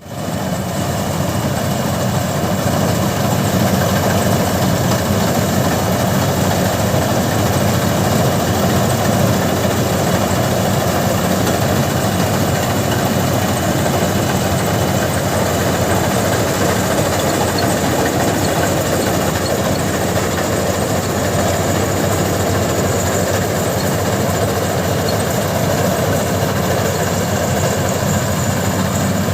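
Combine harvester's engine running steadily and loudly, with a constant low hum under a broad mechanical din; it cuts in suddenly at the start.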